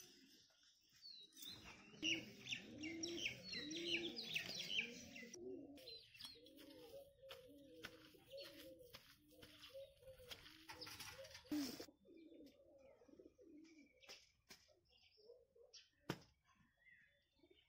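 Pigeons cooing, a steady series of repeated low coos lasting most of the first dozen seconds. Small birds chirp over it for a few seconds near the start.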